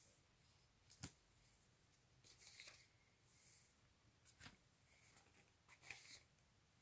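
Cardboard LP sleeves being handled and flipped forward one at a time: faint sliding rustles and light taps, about four in all, a second or two apart.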